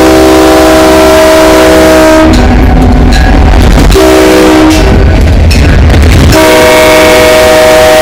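Diesel locomotive's multi-chime air horn blowing a long blast, a short blast about four seconds in, and another long blast near the end: the warning pattern for a road crossing. The sound is boosted to the point of distortion, with a heavy low rumble between the blasts.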